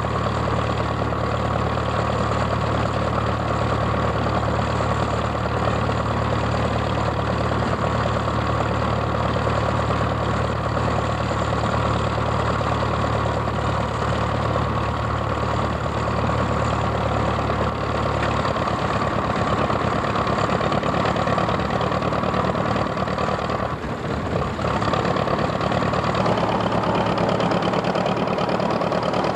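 Old farm tractor engine running steadily, with a dense mechanical clatter. Its low steady note drops out partway through.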